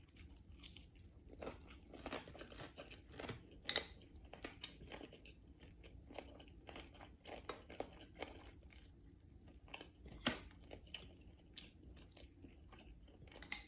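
Close-up chewing and crunching of crispy deep-fried pompano, a run of short crackly crunches with a few louder bites.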